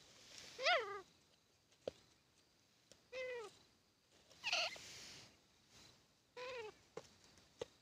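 Grey francolin (titar) giving four short pitched call notes, each arching up and then down, spaced one and a half to two seconds apart, with faint clicks between them.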